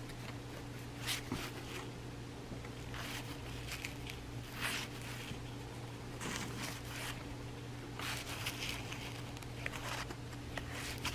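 Cardboard baseball cards being handled and slid against one another, a series of short, faint scrapes and swishes every second or two.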